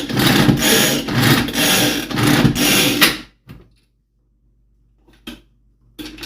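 A pull-cord manual food chopper whirring in quick repeated yanks, about two a second, as it chops cauliflower into rice. It stops abruptly about three seconds in, followed by a few light knocks.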